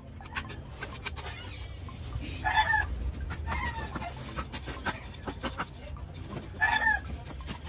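Chickens clucking, with three short calls over the continual scraping and chipping of a knife and a bolo blade stripping bark from wooden sticks.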